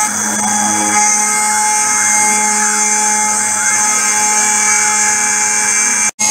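CNC milling machine cutting aluminium: the spindle runs steadily with a constant whine, while the axis motors' whines rise and fall in pitch as the cutter moves. The sound drops out for an instant near the end.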